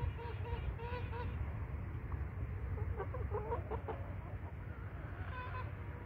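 Chicken clucking: a short run of choppy calls about three seconds in, over a low steady rumble.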